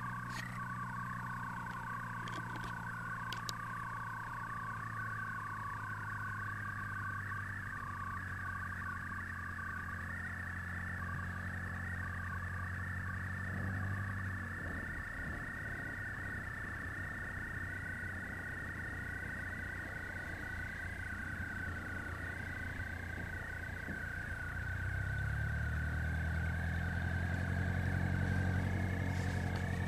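An engine running steadily; its pitch shifts about 14 seconds in and rises, getting louder, from about 25 seconds in.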